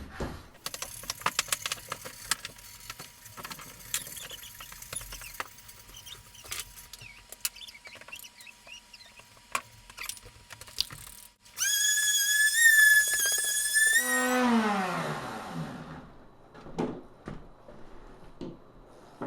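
Scraping and scrubbing on a table saw's rusty top: a long run of scratchy strokes and sharp clicks. Near the end, a small electric motor runs with a steady whine for about two and a half seconds, then winds down with falling pitch.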